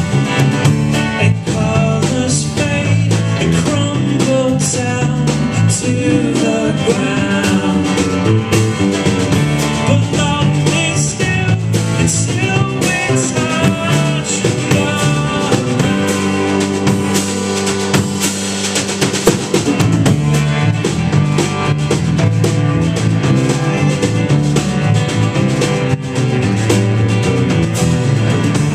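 Live folk-rock band playing a long instrumental passage: strummed acoustic guitar, electric guitar, drum kit and cello.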